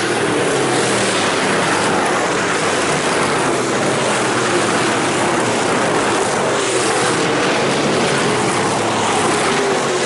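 A pack of IMCA stock cars' V8 engines running hard around a dirt oval, their pitch rising and falling as the cars go through the turns.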